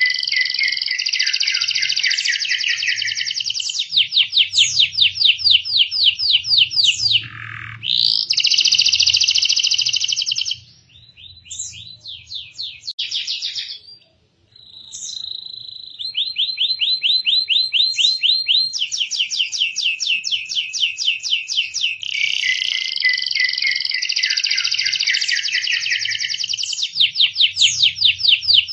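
Domestic canary singing long rolling trills, runs of very rapid repeated notes switching between high and lower phrases. About ten seconds in the song breaks into short, quieter phrases with a brief gap, then the steady trilling resumes.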